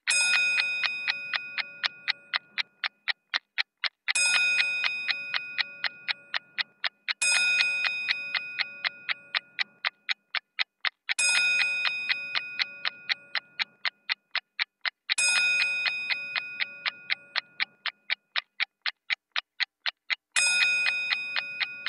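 A steady clock-like ticking, about four ticks a second, laid under six struck bell chimes. Each chime rings with several clear tones and fades away over about three seconds.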